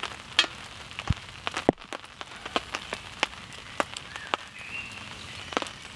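Small stick campfire crackling, with irregular sharp pops and snaps over a low hiss.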